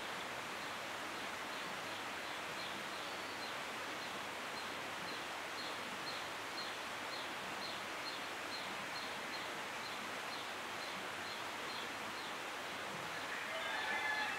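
Steady outdoor background hiss with a small, high chirp repeating about two and a half times a second. Near the end come a few louder pitched chirping calls.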